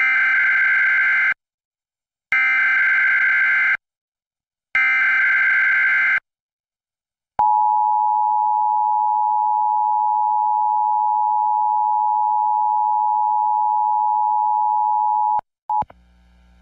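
Emergency Alert System broadcast signal: three short bursts of SAME header data, each about a second and a half long with a second's gap between them. These are followed by the steady two-tone EAS attention signal, held for about eight seconds before it cuts off.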